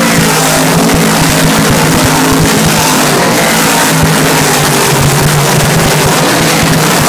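Big-block dirt modified race cars running hard around the track, the loud, continuous engine noise of several V8s at once.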